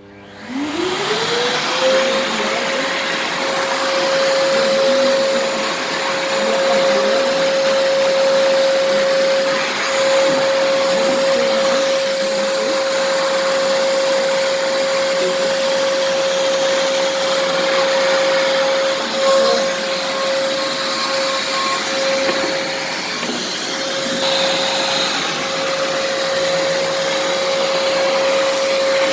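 A 1600 W wet and dry canister vacuum cleaner, the American Micronic AMI-VCD21, is switched on. Its motor whine climbs in pitch over about two seconds as it spins up, then it runs steadily with a strong rush of airflow.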